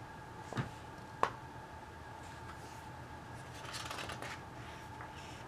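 Picture-book pages being handled: two light taps about half a second and a second in, then a paper rustle as a page is turned a little before four seconds in.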